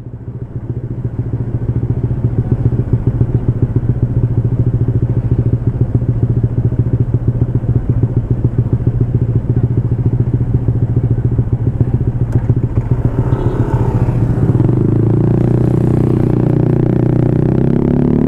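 Honda ADV 150's single-cylinder scooter engine idling through an aftermarket SC Project exhaust silencer, with a fast, even pulsing beat. About fourteen seconds in, the note turns smoother and steadier.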